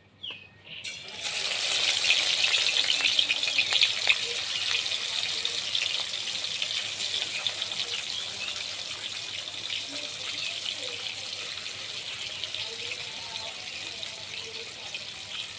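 Pieces of rohu fish, rubbed with salt and turmeric, sizzling and crackling as they go into hot oil in a wok. The sizzle starts suddenly about a second in, is loudest over the next few seconds, then settles into a steady fry.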